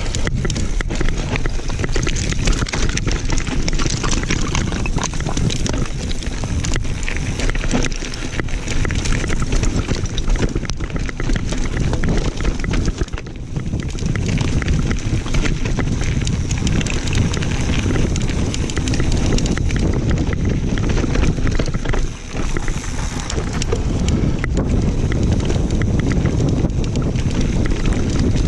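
Mountain bike descending a rough singletrack: the tyres crunch over dirt and stones and the bike rattles and knocks over the bumps, under steady wind noise on the microphone.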